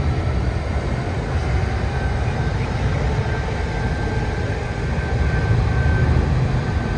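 Airbus A380's four jet engines running, a steady loud rumble with a faint high whine over it.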